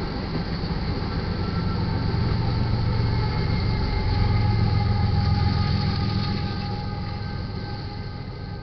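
Freight train passing close by: steel wheels of empty tank cars rumbling on the rails, then the rear-end GE ES44C4 diesel locomotive going by. The low rumble swells to its loudest about halfway through as the locomotive passes and fades as the end of the train moves away.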